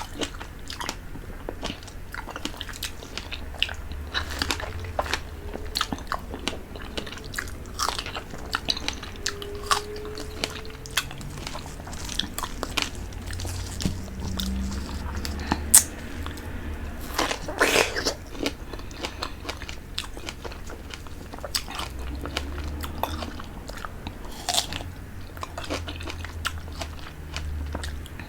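Close-miked eating sounds of a person sucking and chewing on a fish head from soup, made up of many short mouth clicks and smacks.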